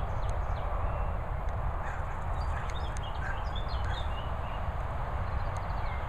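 Steady wind rumble on the microphone, with scattered short, high bird chirps.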